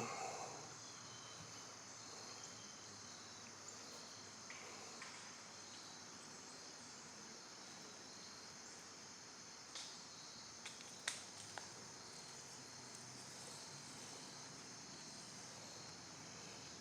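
Faint steady chirring of insects, such as crickets, with a few light clicks about two-thirds of the way through.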